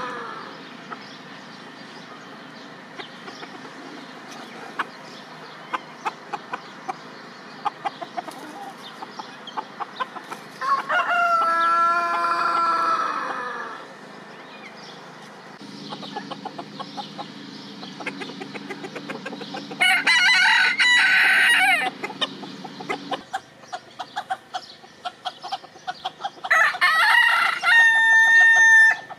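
Phoenix roosters (a long-tailed ornamental breed) crowing: three long crows, one about a third of the way in, one past the middle and one near the end. Short sharp clicks come between the crows.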